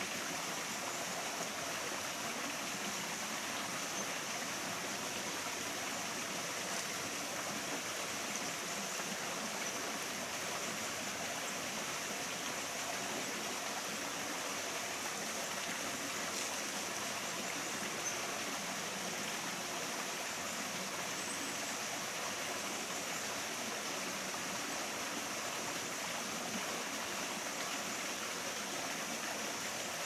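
Mountain stream running over rocks: a steady wash of flowing water.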